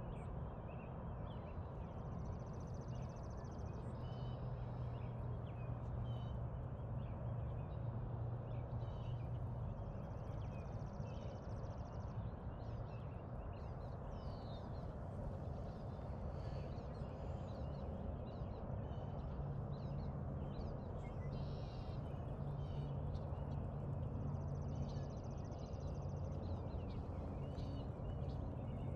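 Outdoor ambience: a steady low rumble with scattered bird chirps, and three short buzzy high-pitched sounds, about 2, 10 and 24 seconds in.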